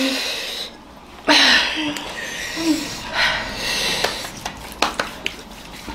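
People breathing hard and blowing out through pursed lips, hissing and panting, with short voiced groans, in reaction to the burning heat of a super-hot chili chip. A few sharp hand claps come near the end.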